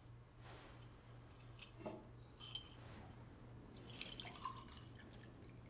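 Quiet room tone with a steady low hum, broken by a few faint, short clicks and clinks about two seconds in and again near four seconds.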